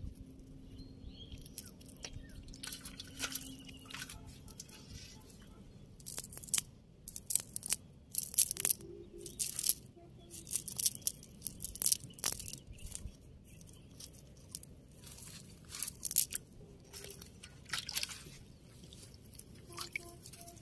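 Nylon fishing net being pulled and picked through by hand on grass: irregular crunching and rustling crackles, busiest in the middle of the stretch.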